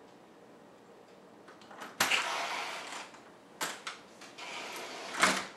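A front door being unlatched and swung open about two seconds in, with a second of rushing noise, a couple of small knocks, then pushed shut with a sharp latch click near the end.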